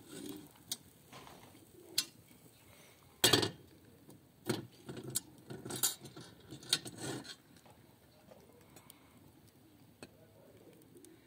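Sharp metal clinks and knocks of a thin skewer against a round iron flatbread griddle as the bread is turned and lifted off. There are a few single clicks, a loud knock about three seconds in, and a cluster of clinks between about four and a half and seven seconds in.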